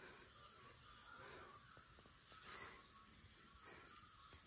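Steady, high-pitched drone of insects in the forest.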